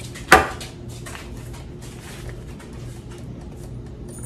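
Aerosol cooking-spray can set down on a stone countertop with one sharp knock, followed by faint handling clicks and rustles.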